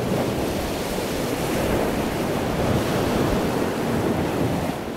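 Steady rushing sound of ocean waves, swelling a little in the middle and easing off near the end.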